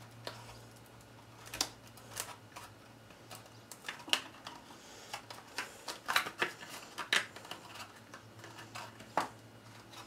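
Cardstock being handled and pressed together while its tabs are glued: irregular crinkles and light taps, with a low steady hum underneath.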